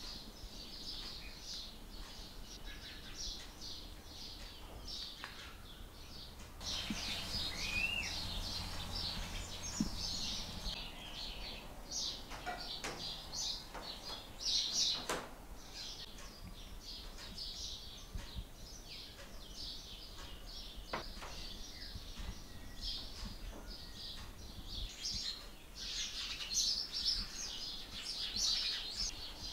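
Small birds chirping in many short, high notes, with one brief rising whistle about eight seconds in. A few faint knocks sound among them.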